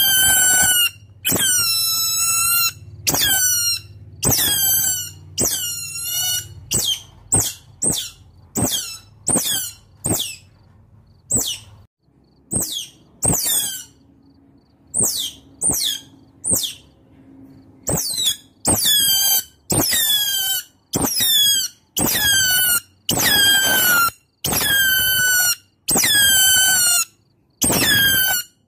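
Otter calling: a series of shrill, high-pitched squeaking calls, each dropping in pitch. They come about once a second near the start and again near the end, with a stretch of shorter, fainter chirps at about two a second in the middle. These are otter calls to companions, used as a lure.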